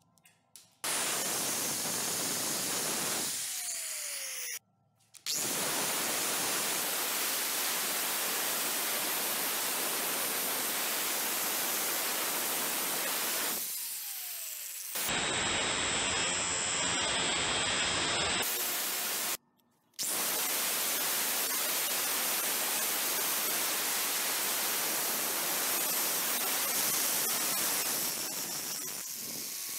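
Angle grinder grinding the head of a stainless steel bolt clamped in a vise: a loud, steady hiss of the disc on the metal in several long stretches broken by short gaps. Before two of the gaps the motor's pitch falls as it winds down.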